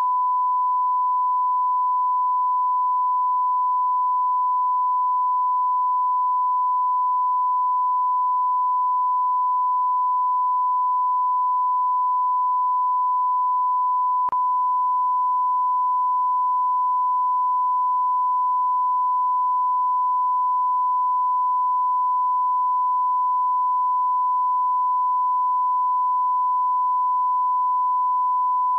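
Continuous 1 kHz sine-wave test tone, the line-up tone that goes with colour bars, held at one pitch and level without a break.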